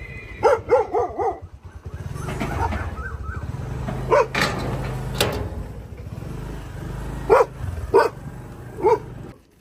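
Dog barking: a quick run of four barks about a second in, then five more single barks spread out through the rest, over a steady low rumble.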